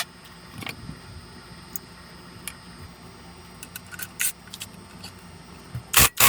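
Scattered light clicks and clinks of hand tools and small engine parts being handled, then two loud sharp knocks near the end.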